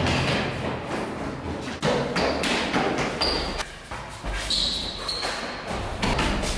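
A run of irregular heavy thuds and knocks, with a few short high tones in between.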